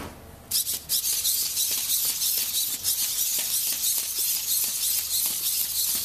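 PhantomX quadruped robot walking: its leg servos whir in a dense, high-pitched buzz with rapid clicking, and its plastic feet tap on a concrete floor. The sound starts about half a second in and keeps going.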